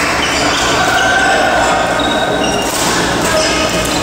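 Badminton hall bustle: rackets striking shuttlecocks on several courts, sneakers squeaking on the court mats, and players' voices.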